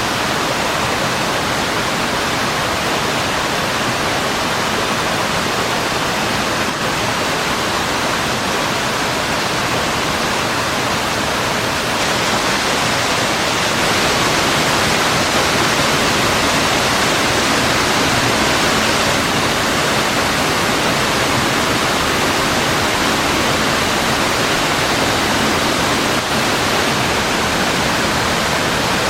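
Waterfall pouring heavily: a steady, dense rush of falling water that swells slightly about thirteen seconds in.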